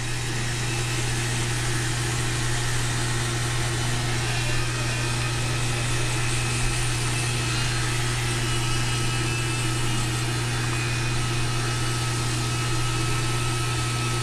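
Electric toothbrush running with a steady buzzing hum while teeth are brushed.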